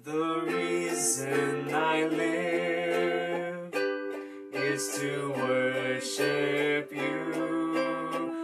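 Ukulele strumming chords of a slow worship song, with brief breaks in the strumming about four and seven seconds in.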